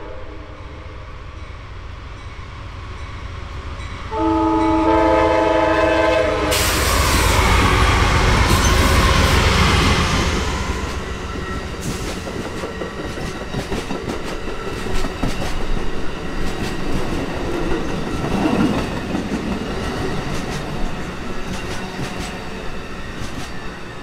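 Amtrak passenger train passing close by. The locomotive's air horn sounds one long chord a little after four seconds in, then the locomotive goes by with a loud rush at about six and a half seconds. The cars' wheels follow, clicking over the rail joints and slowly fading.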